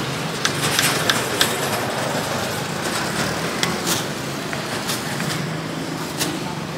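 Steady street traffic noise with a low engine hum, and a series of sharp clicks from a kitchen knife tapping and cutting on a wooden chopping board, several in quick succession in the first second and a half and a few more later.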